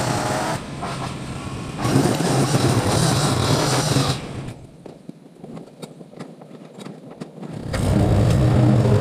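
Small gasoline engine of a yard power tool running, with a dip in level early on. About four seconds in it drops away, leaving a few seconds of scattered clicks, then runs loudly again near the end.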